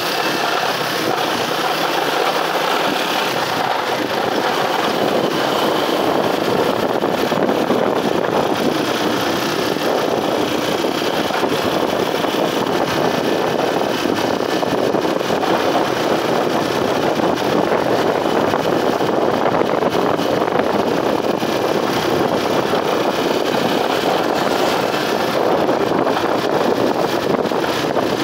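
Motorcycle running under way at a steady pace, its engine mixed with a constant rush of wind and road noise on the rider's microphone.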